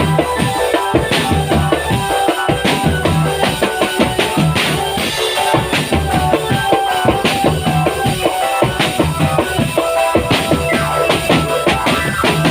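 Loud live street-band music: a steady drum beat with bass-drum thumps under a melody of held notes.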